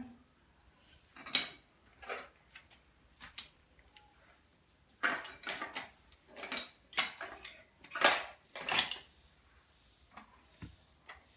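Metal hand tools clinking and knocking as they are handled and set down, a string of separate sharp knocks, most of them bunched in the middle.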